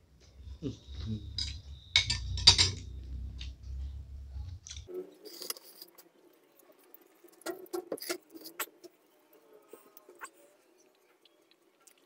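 Someone eating with a spoon from a bowl: irregular metal clinks of the spoon against the dish, the loudest about two and a half seconds in, with a low rumble during the first five seconds.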